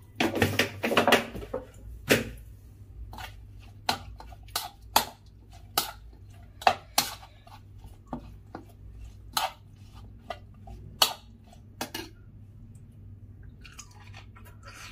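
A plastic jar is handled and closed with a rustling clatter. Then comes a run of sharp, irregular clicks and knocks, about one a second, as food is mixed by hand in a plastic bowl. The clicks stop a few seconds before the end.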